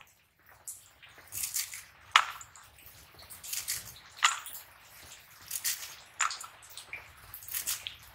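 Red amaranth stems being cut by hand against the upright blade of a bonti, with a crisp snap and a rustle of leaves about every two seconds.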